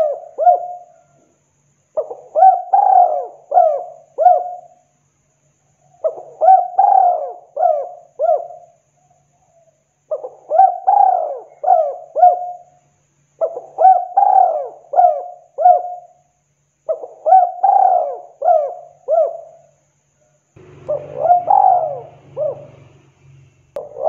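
Spotted dove cooing: a phrase of about five short coos, repeated every three to four seconds, six full phrases in all.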